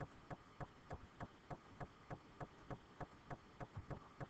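Faint, evenly spaced clicks, about three a second.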